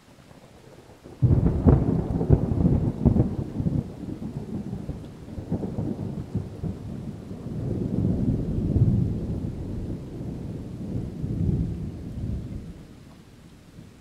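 Thunder: a sudden crack about a second in that rolls into a long low rumble, swelling again twice before fading near the end.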